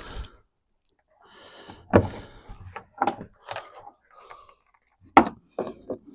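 Small plastic parts and wiring pieces handled during headlight installation: a few sharp clicks and knocks with brief rustling between them, the loudest knock about five seconds in.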